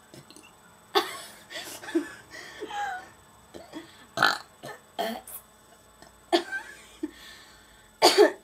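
A person burping on command: a run of a dozen or so short burps, shaped like spoken syllables as in burping the alphabet, with a loud double burp near the end.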